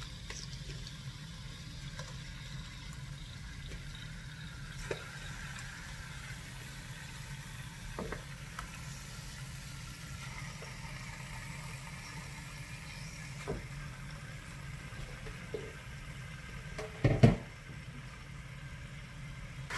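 Raw chicken pieces sizzling faintly in hot oil in a frying pan as they are dropped in by hand, with a few soft clicks and one louder knock near the end.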